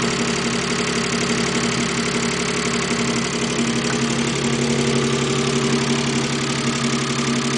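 Mazda K8 1.8-litre V6 idling with a steady knock. The knock started after the left-bank camshafts were removed to change a retainer and put back; the owner believes the timing belt is set right and the tensioner is fine, and fears a refitting mistake.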